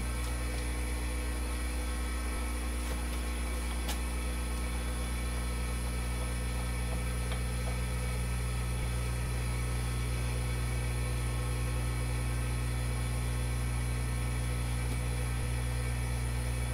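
Milling machine running unloaded: a steady motor and spindle hum while no cut is being made. A faint click about four seconds in.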